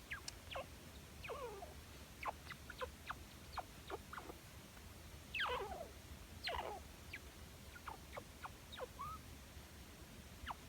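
Chinchilla calling in a string of short, soft squeaks that fall steeply in pitch, with two longer, drawn-out ones near the middle.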